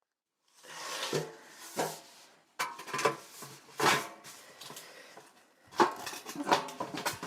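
Hard building pieces being handled and fitted: a series of sharp knocks and clinks, some with a brief ringing tone, with scraping between them.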